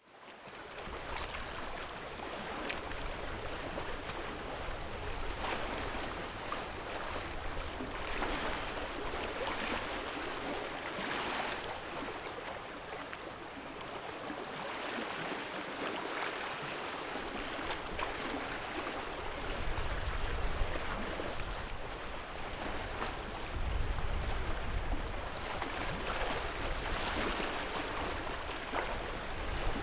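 Lake waves washing onto the shore, swelling every few seconds over a steady wash of water. A low rumble comes in about twenty seconds in and again a few seconds later.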